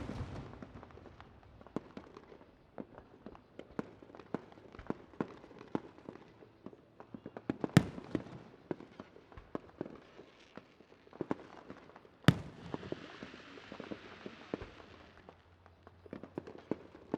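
Fireworks going off: a steady scatter of pops and cracks, with two louder bangs about eight and twelve seconds in, the second followed by a couple of seconds of hiss.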